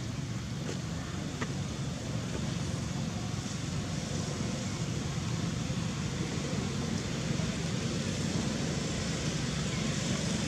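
Steady low rumble of outdoor background noise, even throughout, with no distinct event standing out.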